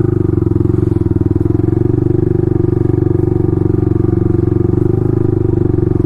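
Motorcycle engine with an aftermarket exhaust running at a steady speed under way, its even, pulsing note holding without revving up or down.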